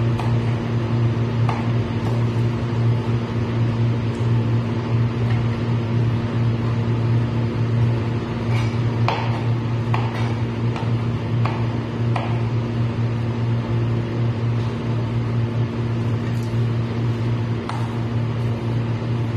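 A steady low machine hum, like a fan or appliance motor, runs throughout and is the loudest sound. Over it, a knife taps sharply on a plastic cutting board while string beans are cut, with scattered strokes and a quick cluster about halfway through.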